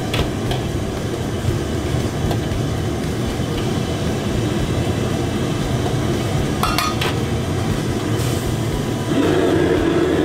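Commercial wok range burner running steadily, with a metal ladle clinking and scraping in a steaming wok. Near the end the burner noise swells as the flame is turned up under the wok.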